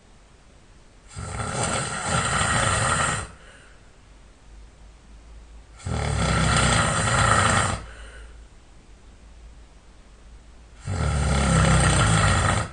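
A sleeping man snoring loudly: three long snores of about two seconds each, roughly five seconds apart, each with a low rattle.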